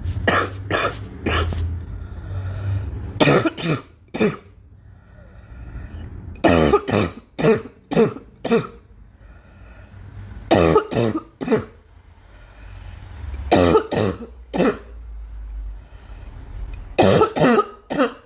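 A girl coughing in about six fits of two to four coughs each, the fits coming every three to four seconds.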